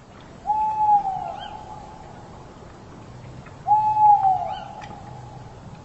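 A bird calling twice, each call a held hooting note that falls away at the end, about three seconds apart.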